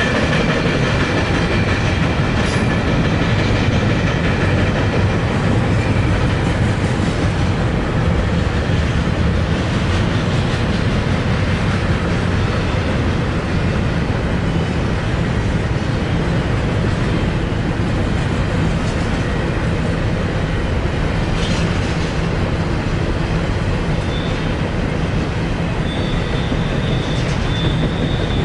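BNSF intermodal train's double-stacked container cars rolling past, a steady rumble of steel wheels on rail with a few sharp clicks. A thin, high wheel squeal rises near the end.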